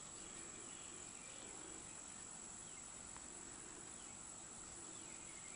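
Near silence: faint steady background hiss with a thin, constant high-pitched tone running through it. No crochet or handling sounds stand out.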